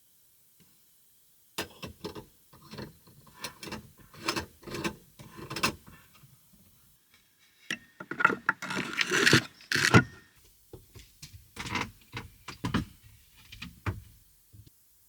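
Irregular clicks, knocks and rattles, as of things being handled or moved, with a denser clattering stretch in the middle.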